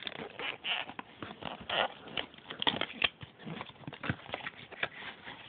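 Packing tape being picked at and peeled off a Beyblade box, with irregular crackles, taps and rustles of handling.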